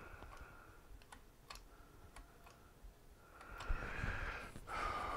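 Light clicks and ticks from a Golden Companion mobility scooter's tiller adjustment mechanism and gas strut being worked by hand. From about three and a half seconds a louder rubbing noise follows, with a sharp knock, as the tiller is moved.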